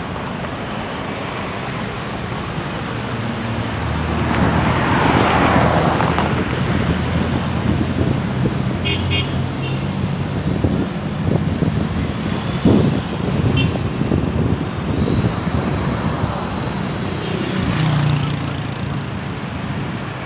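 Steady road traffic passing, with one vehicle swelling past about five seconds in. A few short, high-pitched chirps come through around the middle.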